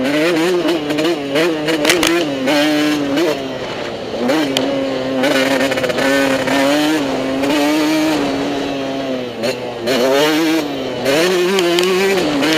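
Motocross bike engine revving hard, its pitch rising and falling quickly with the throttle through the first few seconds, holding steadier through the middle, then rising and falling again near the end.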